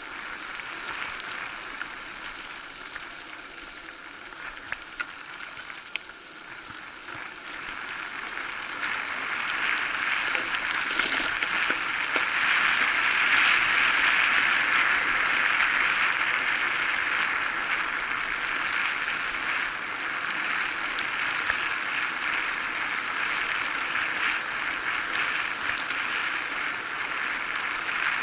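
Electric bike rolling along a forest dirt track: a steady, hissy rolling noise of tyres on the ground with a few small clicks and rattles. It grows louder about a third of the way in, then eases slightly.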